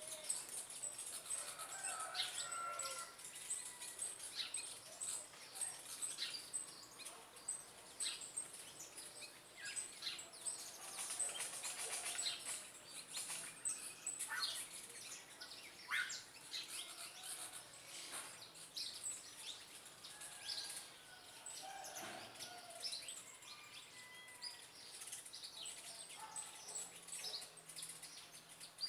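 Several small birds chirping and calling, with many short, sharp downward-sweeping chirps and some lower warbled notes, over a faint, fast, even high ticking that runs underneath.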